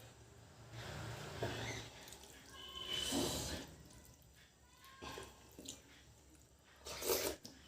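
Close-up eating of curry and rice: wet chewing and mouth sounds in several short bursts, the loudest about three seconds in and near the end.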